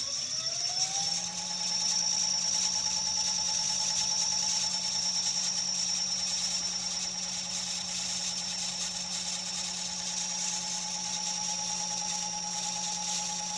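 Hoverboard hub motor spinning a rewired 18-pole washing-machine motor that is being run as a generator: an electric whine rises in pitch over the first second or so as it speeds up, then holds steady along with a low hum and a high whine.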